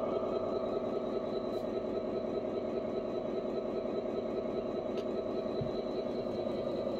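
Electronic sound module in an RC Mercedes-Benz SK 10x6 truck playing a truck engine idling steadily through its small speaker.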